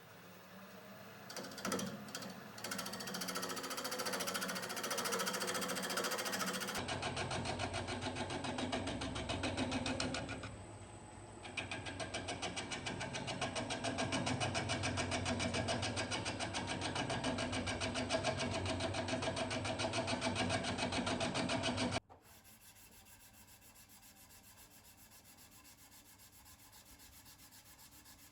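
Wood lathe running with a fast, even rhythmic chatter, dipping in level briefly around ten seconds in. It stops abruptly about twenty-two seconds in, leaving a faint steady hum.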